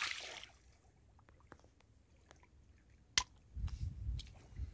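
Shallow water splashing briefly as a large fish is handled in a fishing net, dying away within half a second, then faint wet clicks and a few low thuds near the end.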